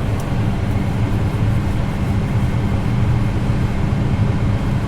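Tractor engine running steadily, heard from inside the cab: a constant low drone.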